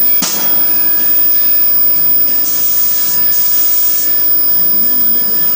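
Steady loud machine roar in a blacksmith's forge, with one sharp knock just after the start and two short bursts of high hiss in the middle.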